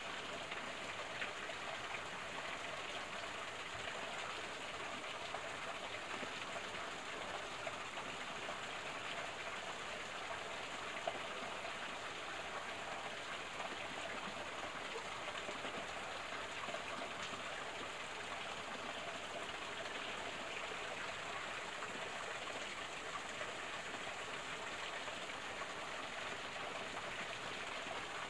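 Steady, even patter of water around a small stream pool, with one faint click about eleven seconds in.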